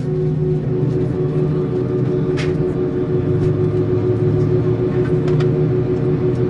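Steady cabin hum of an Airbus A319 parked at the gate before engine start, a low drone with a few constant tones from the aircraft's air-conditioning and ventilation. A short hiss comes about two and a half seconds in.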